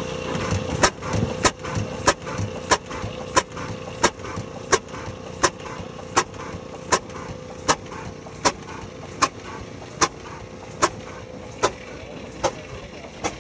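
Large antique hit-and-miss engine with a sharp metallic click repeating about every two-thirds of a second, the rhythm slowing steadily, over a steady hum.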